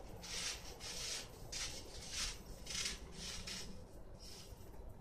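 Trampoline springs and mat rasping with each bounce in a steady rhythm of about three bounces every two seconds, fading out near the end.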